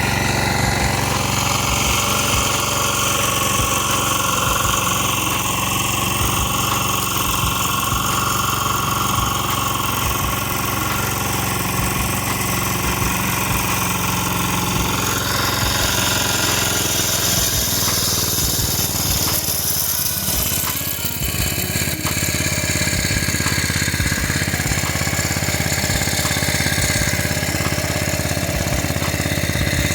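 Engine of a farm irrigation pump set running steadily at constant speed, pumping water into the rice field.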